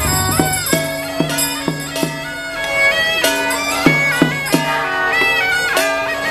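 Traditional Chinese ritual music led by a suona-type double-reed shawm playing a bright, ornamented melody that moves quickly from note to note over lower held notes.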